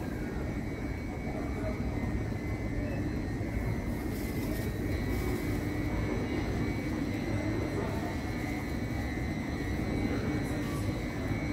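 Steady low rumble and hum of an underground light-rail station, with a Stadtbahn car standing at the platform, and a faint steady high tone over it.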